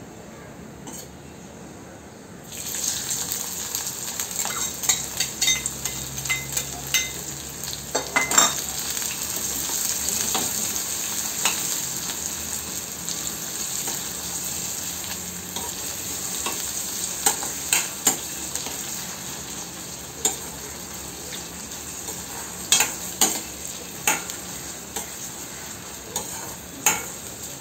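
Chopped onion, garlic and green chillies dropped into hot oil with cumin seeds in a stainless steel kadai, setting off a sudden sizzle about two seconds in that keeps frying steadily. A steel ladle stirs them, clicking and scraping against the pan again and again.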